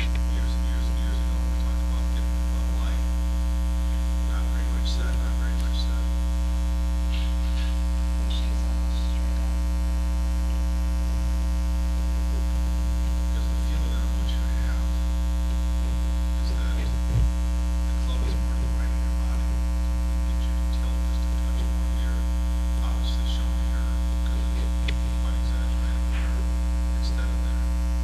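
Steady electrical mains hum with a stack of overtones, unchanging throughout, with one short click about 17 seconds in.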